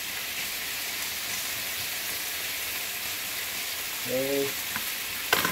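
Thick-cut bacon sizzling steadily in a skillet, with a short clatter of a utensil near the end.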